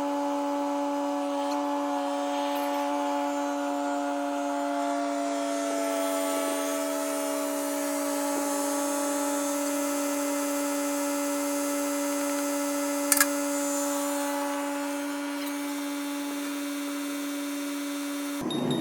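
A motor running steadily with an even hum, one of its tones sliding slowly lower partway through, and a single sharp click near the end.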